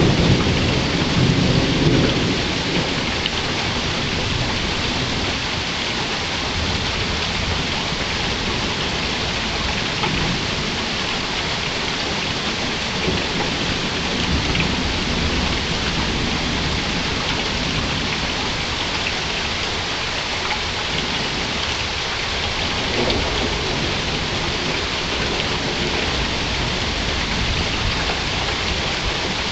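Steady rain falling, with low rumbles of thunder. The thunder is strongest in the first couple of seconds and comes back briefly a few more times.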